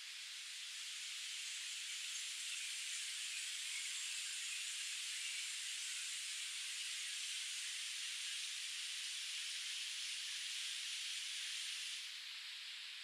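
Steady rush of water from river cascades: an even hiss that swells over the first couple of seconds, holds, then drops away suddenly near the end.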